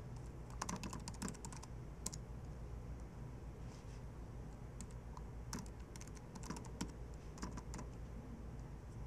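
Computer keyboard typing: short bursts of quick keystrokes with brief pauses between, over a low steady hum.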